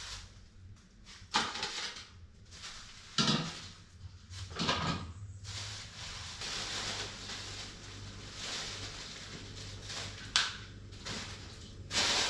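Plastic bags of vegetables rustling as green beans are taken out and handled into a steel bowl, with a few short knocks and crinkles along the way.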